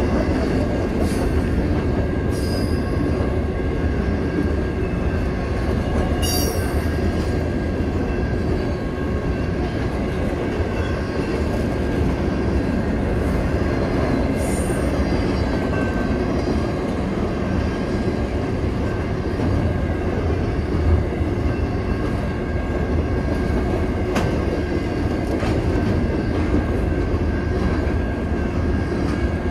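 Intermodal freight train's cars rolling steadily past close by, a continuous rumble of wheels on rails, with a few brief high-pitched wheel squeals.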